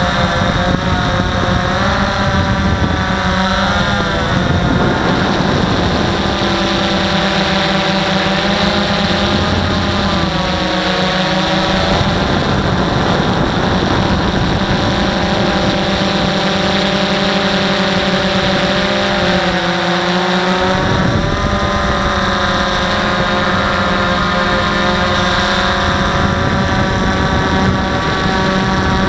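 DJI Phantom 1 quadcopter's four motors and propellers whining in flight, heard close up from the camera mounted on the drone. The pitch of the whine shifts up and down several times as the throttle changes.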